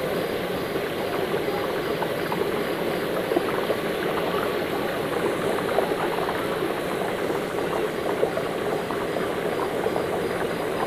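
Thin besan sev strands deep-frying in a wide karahi of hot oil: a steady, dense sizzle with many small crackles as fresh dough is pressed through a perforated ladle into the oil.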